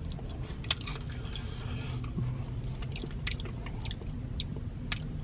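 Person chewing breaded fried chicken tenders: scattered crunches and small mouth clicks over a steady low hum.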